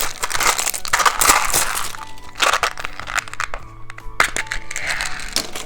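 Crisp crackling and crunching of plastic candy packaging being handled and opened, several sharp cracks scattered through, over steady background music.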